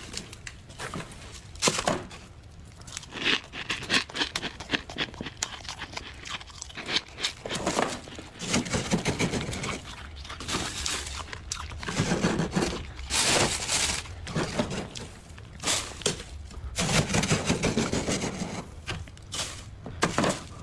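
Knife blade cutting and scraping through thick, snow-like frost built up inside a freezer: irregular crunching and tearing, with several longer, louder stretches of crunch.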